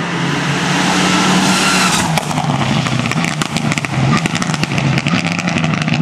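Hillclimb race car's engine running hard at high revs, loud and steady in pitch, with a rapid irregular crackling from about two seconds in.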